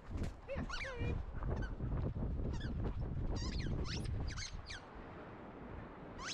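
Action camera strapped to a running greyhound's back: a steady low rumble of wind and movement, with a rapid series of short, high squeaks that fall in pitch, most of them in the first five seconds.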